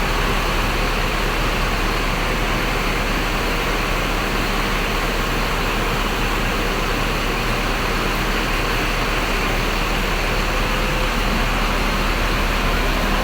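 Steady running noise of a moving intercity bus: an even engine hum under a broad rush of road and air noise, with no change through the stretch.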